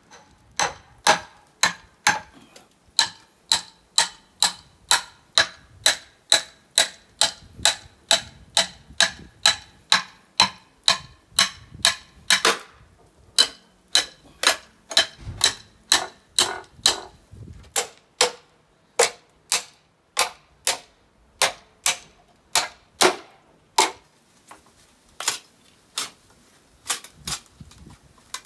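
Hammer striking the back of a splitting blade set into the top of an upright bamboo culm, driving it down to split the bamboo. The blows come steadily, about two a second, each with a short metallic ring, then slow to a few irregular strikes near the end.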